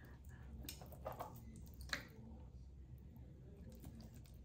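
A handful of faint, short wet sounds of a hand rubbing an oil-and-vinegar marinade over raw pork ribs in a metal roasting pan.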